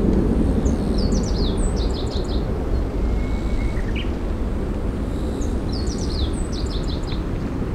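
Low, steady rumble of a departing Boeing 737-500's CFM56 jet engines, easing slightly as the aircraft climbs away. A small bird sings the same short, high chirping phrase twice, about five seconds apart, with a single rising whistle between them.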